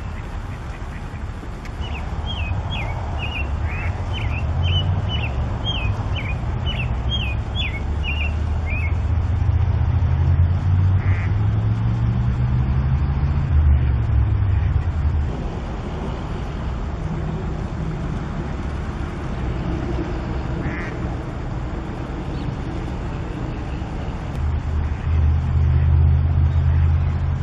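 Mallard ducks quacking now and then over a loud low rumble that swells twice, once through the middle and again near the end. A quick run of short, high chirps comes a couple of seconds in.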